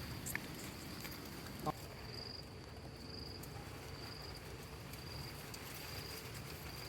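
An insect chirping faintly, a short high note repeated about once a second over a quiet outdoor hiss, with one small click near two seconds in.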